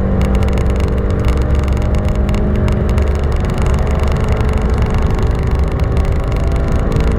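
1989 Honda Civic ED7's lightly tuned original engine pulling hard on track, heard from inside the cabin over heavy road and wind rumble. Its steady note drops away about three seconds in, as the car slows for a corner, and a new steady note comes in near the end.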